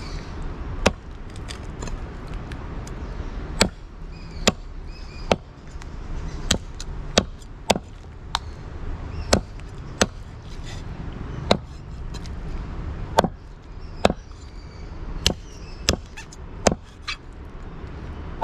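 Cleaver chopping a raw rabbit carcass on a wooden log chopping block: sharp, single chops at an irregular pace, about one a second, over a steady low background rumble.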